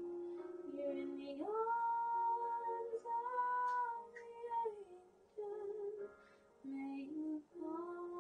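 A woman singing a slow tune with no clear words, holding one long note for about three seconds, then several shorter notes with brief pauses.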